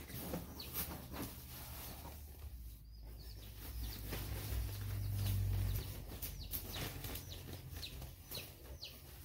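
Easter Egger chicks peeping, a string of short high rising calls scattered throughout, with a low rumble about five seconds in.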